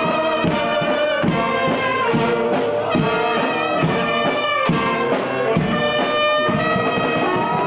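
A banda, a festive brass band, playing a tune with trumpets and trombones over a steady beat.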